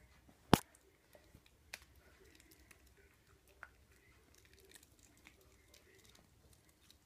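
A small dog takes a hard dog biscuit from a hand with one sharp crack about half a second in. After that come faint scattered clicks and rustling as it noses into a fleece blanket on its bed.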